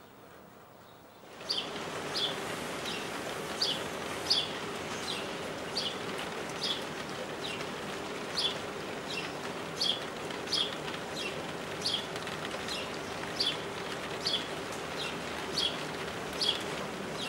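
Steady rain falling, with a bird repeating a short, falling chirp about once or twice a second. Both come in suddenly about a second and a half in, after a moment of quiet room tone.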